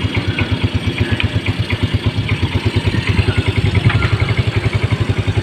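SYM Mitsukoshi SIP 125 scooter's single-cylinder engine idling with a steady, rapid low pulse.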